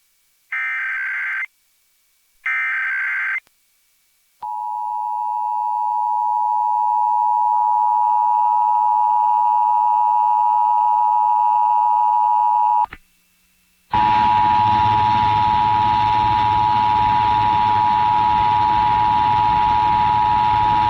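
The last two of the Emergency Alert System's three SAME header data bursts, short harsh digital squawks, relayed over FM radio. About a second later comes the EAS two-tone attention signal (853 and 960 Hz), a steady tone that swells over its first seconds. It breaks off for about a second near the middle and comes back with a heavy hiss of static and a low hum under it.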